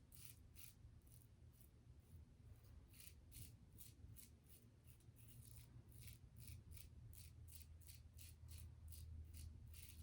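Faint short scraping strokes of a Gillette Tech safety razor with a 3D-printed base plate cutting through stubble, about three strokes a second, over a low steady hum. The audible cutting is the sign that plenty of hair is still left on the face.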